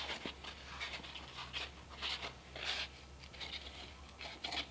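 Faint scattered crackles and rustles of a scored strip of thin cardboard being folded by gloved hands along its score line, over a low steady hum.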